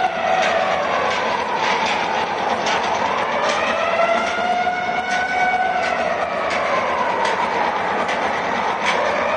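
Loud amplified concert sound: a held, buzzy tone that slides down in pitch and back up again, twice, over crowd noise and scattered sharp knocks.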